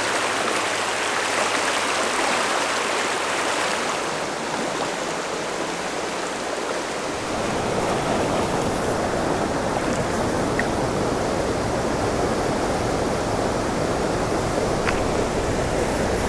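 Spring creek water running and splashing over a shallow riffle, heard close to the surface. It is a steady rushing that turns deeper and fuller about seven seconds in.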